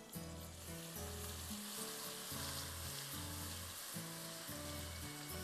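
Sauce of oil, butter and sugar sizzling in a non-stick wok while being stirred with a silicone spatula; the sizzle grows stronger about a second in. Background music with a bass line plays under it.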